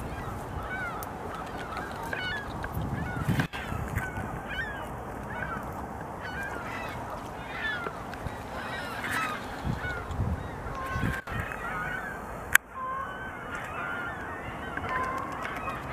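Many geese honking, short calls overlapping one another all through, over a steady background hiss, with one sharp click about three-quarters of the way through.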